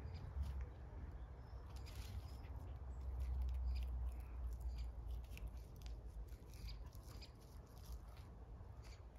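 Scattered small clicks and scuffs of a cat and a puppy tussling on gravel, over a low rumble that swells briefly a few seconds in.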